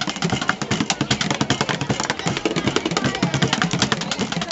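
Bucket drums played with sticks by a street drummer: a fast, steady stream of hits, many strokes a second.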